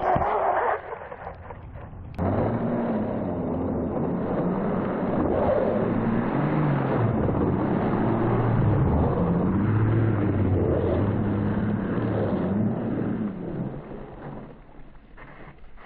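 RC snowmobile skipping across water: a splash of spray in the first second, then from about two seconds in the sled's motor and track running through the water, the pitch rising and falling with the throttle before fading out near the end.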